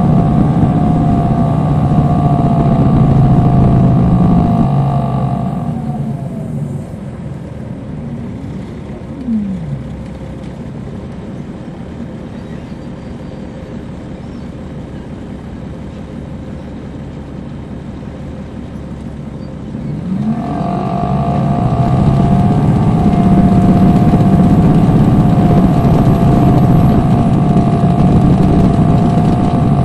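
Caterpillar C13 ACERT diesel engine of a 2007 MCI D4500CL coach, heard from on board. It runs loud with a high whine over it, then eases off about five seconds in, with its note falling and a knock near nine seconds. It runs quieter for about ten seconds, then climbs in pitch from about twenty seconds and grows loud again with the whine returning.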